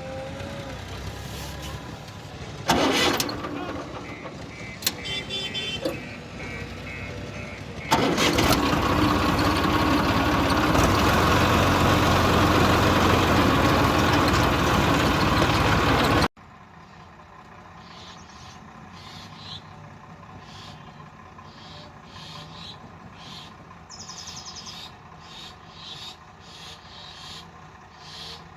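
Diesel engines of a JCB 3DX backhoe loader and tractor running, with a sharp bang about three seconds in. From about eight seconds there is a much louder stretch of engine noise that cuts off abruptly, giving way to a quieter stretch with a regular ticking.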